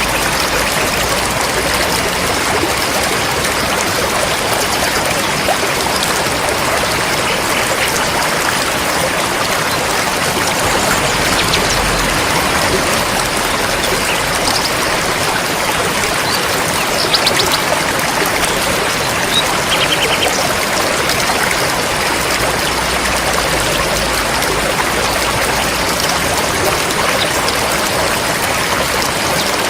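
River flowing steadily, a continuous rush of water. A few faint high chirps come through around the middle.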